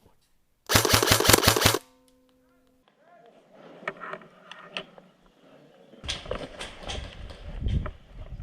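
Electric airsoft gun firing a rapid full-auto burst lasting about a second, cutting in sharply out of silence. It is followed by a short steady tone, then scattered clicks and low rumbling movement noise.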